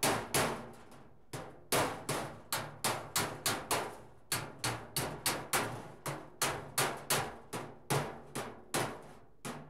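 Hammer planishing a tack-welded steel car-body side panel: about two dozen sharp, ringing metal strikes at roughly three a second, with a brief pause about a second in. The sheets are being dressed flat and parallel so the seams can be welded.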